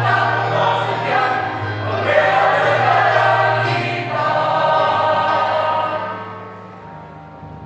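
High-school choir singing an Indonesian patriotic song in long held chords; about six seconds in the singing drops away, leaving a softer low held note.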